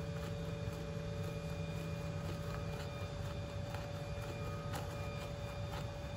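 Steady hum of workshop machinery, made of several constant tones over a low rumble, with a few faint scattered clicks.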